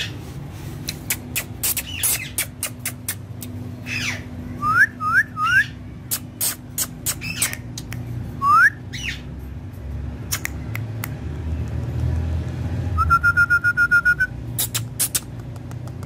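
Indian ringneck parakeet calling: a run of short, sharp squawks, a few quick rising whistles, and a trilled whistle lasting about a second some three quarters of the way through.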